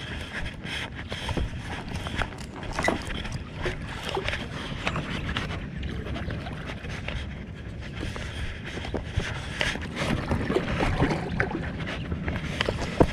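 A hooked catfish splashing and swirling at the water's surface as it is played to the bank, mixed with irregular clicks and knocks from handling the rod and reel.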